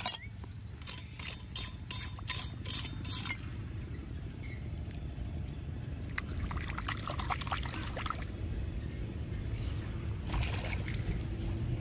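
Shallow muddy stream water splashing and trickling as a small hand hoe and a gloved hand stir through the gravel bed. A quick run of about eight sharp strokes comes over the first three seconds, with more splashing around the middle and near the end, over a steady low rumble.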